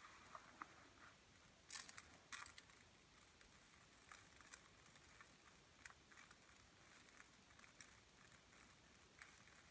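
Faint, sparse ticks and light crinkling of loose rice grains being handled for a rain sound effect, with two louder rustling clusters about two seconds in.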